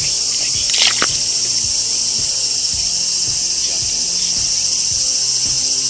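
Background music with a steady beat, over a constant high-pitched insect drone; a short louder noise about a second in.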